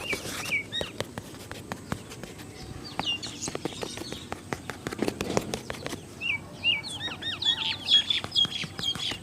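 Birds chirping, with a dense burst of quick chirps from about six seconds in, over a steady run of short sharp clicks.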